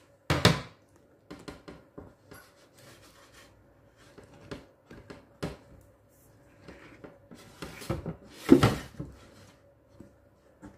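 Wire whisk beating cake batter in a glass bowl: irregular scrapes and taps of the wires against the glass, with two louder knocks, one near the start and one about eight and a half seconds in.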